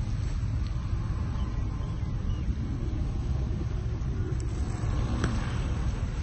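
Steady low outdoor rumble, with a couple of faint sharp ticks about four and five seconds in.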